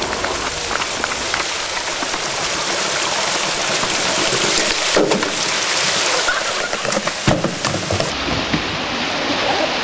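Water of a stone fountain running and splashing, a steady rush, with two sharp knocks in the second half.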